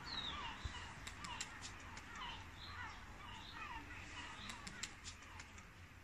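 Birds chirping faintly and repeatedly, each call a short downward chirp, one or two a second, with a few faint sharp clicks about a second in and again near the end.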